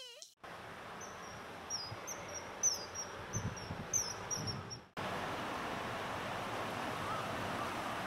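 Common kingfisher giving a rapid series of short, high, thin calls in quick clusters while flying, the continuous call that counts as its song. About five seconds in it gives way to a steady hiss.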